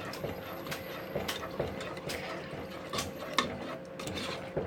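Spoon stirring thick meat-and-tomato sauce in a pot, with irregular clinks and scrapes against the pot about every half second.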